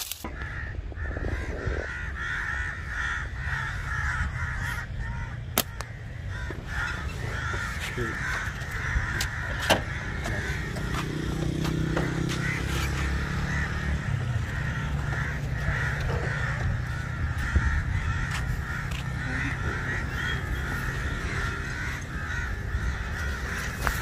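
A flock of crows cawing continuously, with a low rumble underneath and a few sharp clicks.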